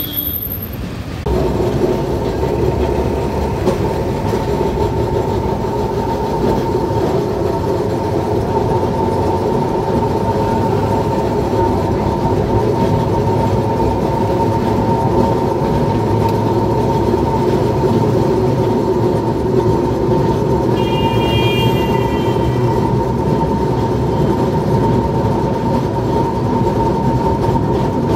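Electric street tram moving along its tracks, heard from inside the driver's cab: a steady motor whine over a rolling rumble of wheels on rails. It grows louder about a second in as the tram gets under way. A brief high beep sounds about three-quarters of the way through.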